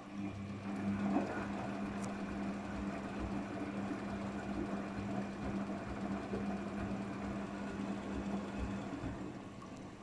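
Daewoo DWD-FT1013 front-loading washing machine running, with a steady motor hum and water swishing in the drum as it turns. The hum starts abruptly and stops about nine seconds in.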